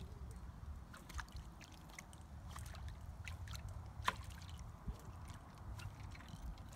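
Light splashes and gurgles of a rod tip and a musky glide-bait lure being swept through the water surface, with scattered small ticks and a sharper splash about four seconds in. A steady low rumble runs underneath.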